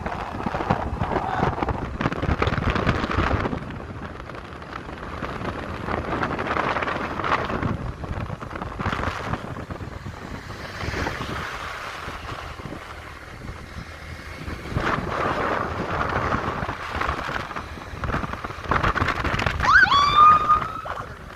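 Noisy rushing sound that swells and fades in waves of a few seconds, like wind gusting across the microphone. Near the end comes a short call that rises in pitch and then holds.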